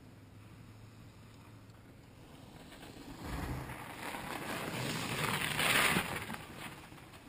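Fat bike's wide tyres rolling over snow: a hiss that builds from about three seconds in, peaks as the bike comes close, then fades.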